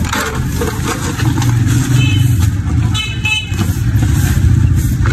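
A motor vehicle engine running with a steady low rumble, and short high-pitched horn toots about two and three seconds in.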